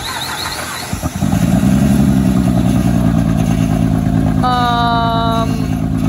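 2006 Honda Pilot's 3.5-litre V6 being cranked on a jump start, catching about a second in and then running steadily and loudly. It runs a little shaky through an exhaust leak.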